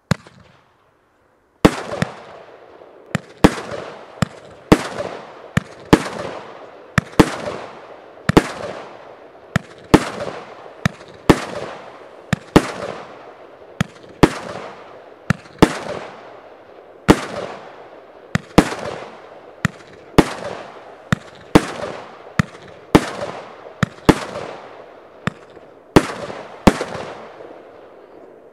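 Vurige Catie firework cake firing shot after shot, starting about a second and a half in: loud sharp reports, one to two a second, each followed by a crackle that fades over about half a second. The last shot comes shortly before the end.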